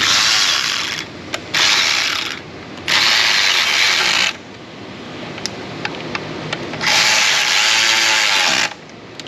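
Ratchet running the throttle-body bracket fasteners back in, in four bursts of rapid ratcheting with short pauses between; the last burst is the longest.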